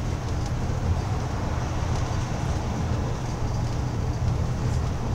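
Steady low engine drone and road rumble of a bus in motion, heard from inside the bus.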